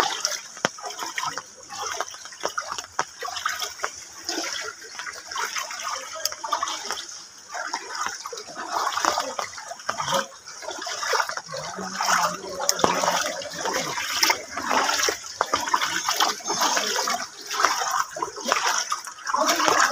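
Shallow floodwater sloshing and splashing around the feet of people wading through it, irregular splashes over a steady rush of flowing water.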